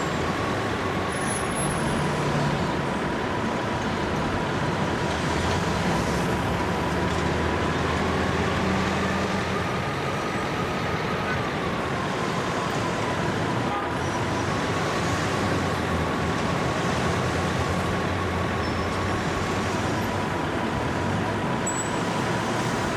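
Engine of a heavy vehicle running steadily, with a high whine that rises a little and settles back around the middle.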